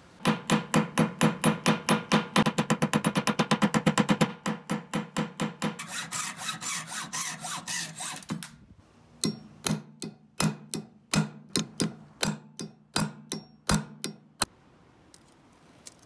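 Hammer striking the end of a steel rod clamped in a bench vise, metal-on-metal blows with a ringing tone. A fast, even run of about five blows a second for the first four seconds, a softer run after it, then separate blows about every half second that stop a second or two before the end.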